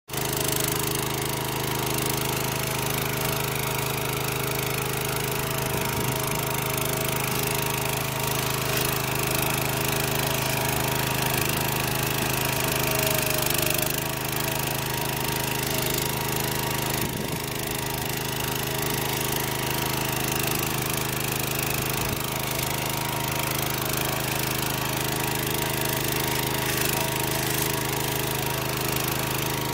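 Casorzo two-wheel walking tractor's small engine running steadily under load as its rotating disc plow cuts a furrow through sod.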